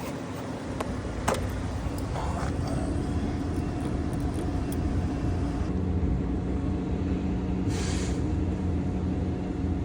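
Steady low drone of an idling vehicle engine, with a few light clicks and a short hiss about eight seconds in.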